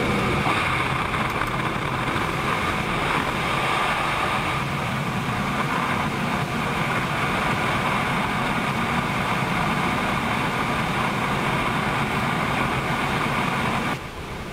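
Steady rush of airflow and jet engine noise picked up outside, under the fuselage of a Boeing 777F on approach, with its GE90 engines running and the landing gear extended. Near the end it drops suddenly to a quieter cockpit hum.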